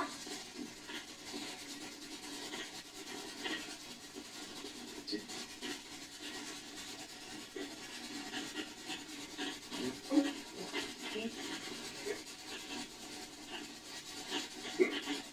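Handling noise: fabric rustling and rubbing close to the microphone, with faint, irregular small scrapes and ticks.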